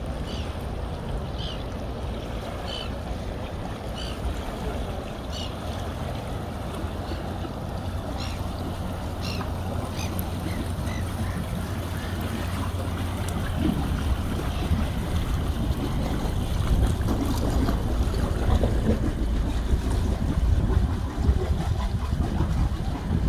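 A sailing yacht's small inboard engine hums steadily at low revs as it motors into a marina lock, over lapping water. A short high chirp repeats about every second and a half through the first half, and wind gusts on the microphone grow stronger after the midpoint.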